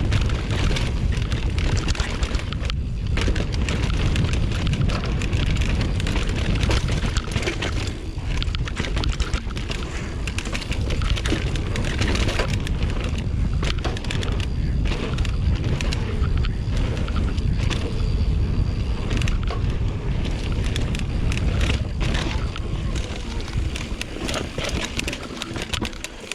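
Mountain bike ridden fast down a dirt trail: heavy wind buffeting on the camera microphone over tyre roar, with frequent clattering knocks as the bike goes over bumps.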